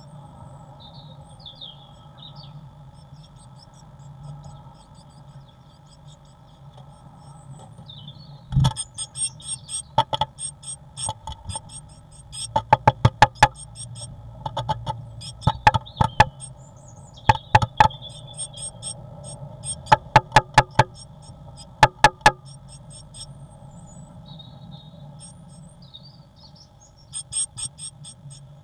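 Great tit at a wooden nest box: a thump as it lands about a third of the way in, then repeated bursts of four or five sharp taps as it pecks at the wooden rim of the entrance hole. A faint steady hum runs underneath.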